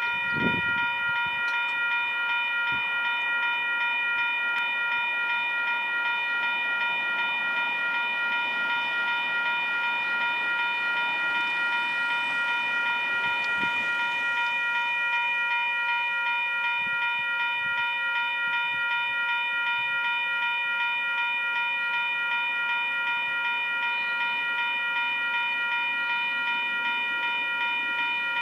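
Railway level crossing warning bells ringing in one steady, unbroken ring, signalling an approaching train.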